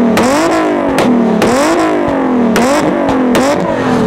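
Nissan 370Z's V6 engine being revved hard and repeatedly: four quick rises in pitch, each falling back slowly, with sharp pops in between.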